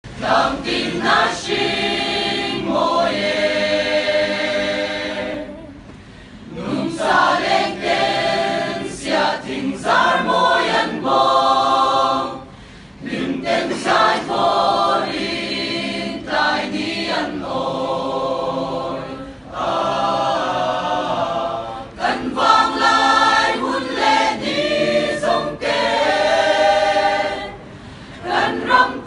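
Mixed choir of men and women singing unaccompanied in several parts, in phrases broken by short pauses.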